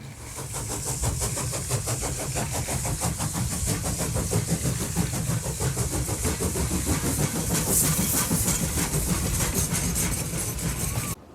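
A motor running with a fast, steady rattle that cuts off abruptly near the end.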